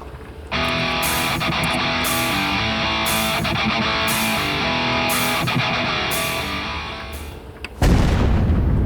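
Loud guitar-driven rock music with a regular high hit about once a second, dying away near the end. Just before the end a sudden, loud, low rumbling noise cuts in.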